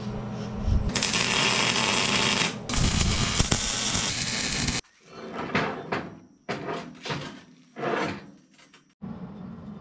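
MIG welder arc crackling steadily for about four seconds as it welds AR-400 steel plate, stopping abruptly. After that come several short scrapes and clanks of steel plates being handled.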